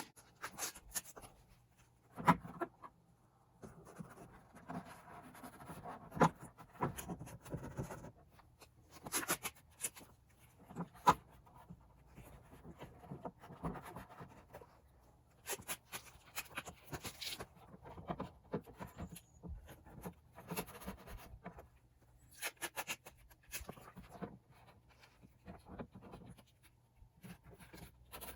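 Hands working on a plastic car diffuser panel: irregular rubbing and scratching with scattered light clicks and taps, the loudest taps near 2, 6 and 11 seconds in.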